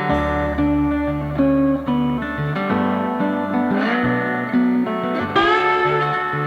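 Background music: an instrumental guitar passage with bass, some notes sliding in pitch.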